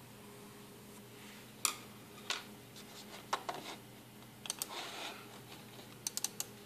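Scattered light clicks and taps, with a quick run of three or four near the end, over a faint steady low hum.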